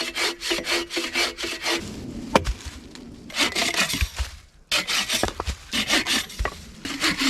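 Wood being hand-sawn: quick back-and-forth strokes, about three or four a second, in three runs with short pauses between, and a few dull knocks from the log.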